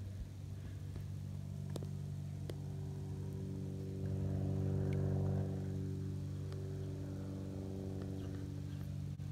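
A steady, low, humming engine or motor runs throughout and grows louder from about four to five and a half seconds in, with a few faint clicks.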